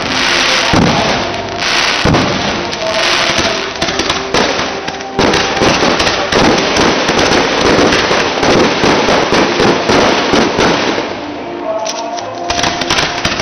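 Fireworks display: aerial shells bursting one after another, a dense run of loud bangs and crackle that thins out about eleven seconds in, with a few last bangs near the end.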